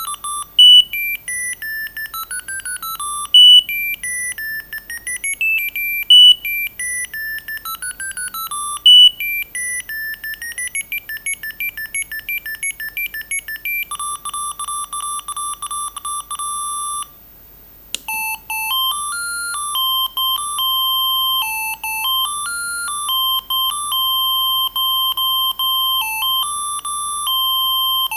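Siemens A55 mobile phone playing its built-in ringtones: a fast electronic beeping melody, then a run of evenly repeated beeps. After a brief pause about 17 seconds in, a new beeping tune starts.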